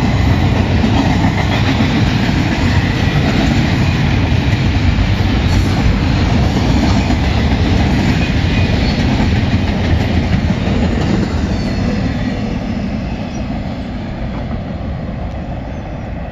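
Double-stack container well cars of a freight train rolling past close by: a steady heavy rumble of wheels with clickety-clack over the rail joints and a faint high wheel squeal. The sound fades away over the last five seconds or so as the end of the train passes and recedes.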